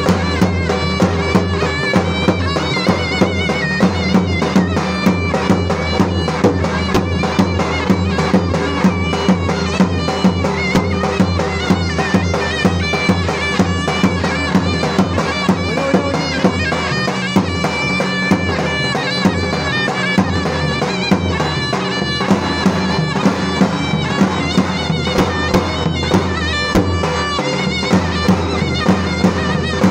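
Zurna playing a loud, wavering folk dance tune over a steady drum beat: live music for a halay line dance.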